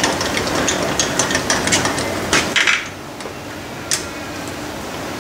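Lathe carriage being cranked along the bed by hand: irregular metallic clicking and clattering from the apron handwheel and gearing, several clicks a second, that stops a little under three seconds in after two louder clatters, with one more click about a second later.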